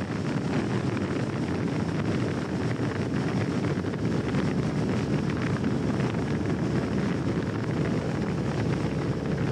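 Steady low rumble and rush of a moving vehicle, with wind buffeting the microphone.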